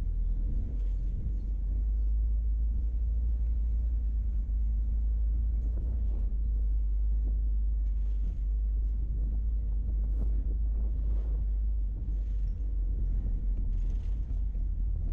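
Steady low rumble of a car driving along a road, engine and tyre noise.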